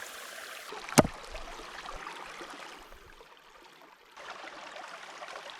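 A steady hiss with one sharp knock about a second in; the hiss dips for about a second shortly after the middle.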